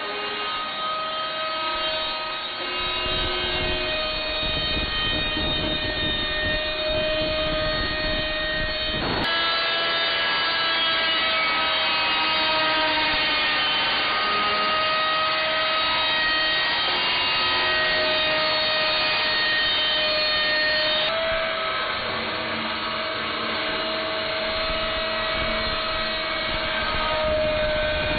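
A saw cutting through a stainless steel tumbler, a steady metallic ringing whine over grinding noise. The sound changes abruptly about 9 and 21 seconds in.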